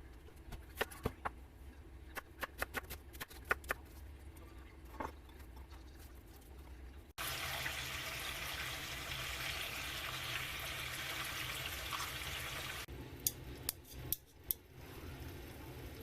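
Kitchen work: a run of light clicks and knocks of dishes or utensils. Then, after a sudden cut, water runs steadily from a tap for about six seconds. A few more clicks follow near the end.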